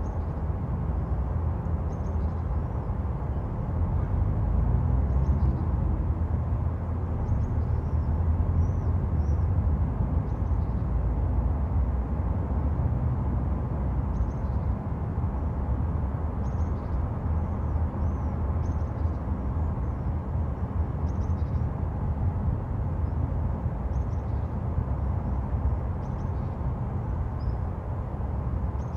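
Steady low rumble of road traffic, swelling a little now and then, with faint high chirps of small birds scattered over it.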